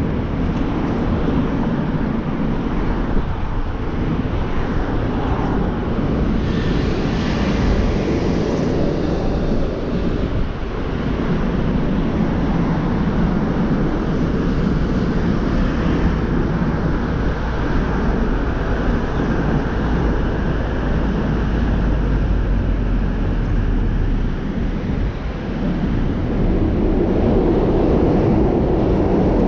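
Steady road and engine noise of a car driving through city traffic, a low rumble throughout. A brighter hiss comes in for a few seconds about seven seconds in, and the noise grows a little louder near the end.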